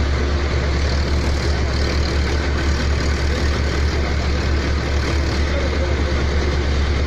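Pneumatic drilling rig running steadily: a loud, constant low engine drone under a dense mechanical din.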